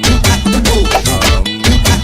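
Brazilian funk (baile funk) music with a fast, heavy drum beat; the bass drops out for a moment about one and a half seconds in.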